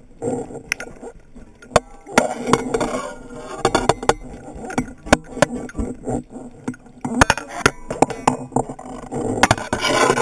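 Underwater noise picked up by a camera on a speargun: irregular sharp clicks and knocks, with stretches of rushing water noise about two seconds in and near the end.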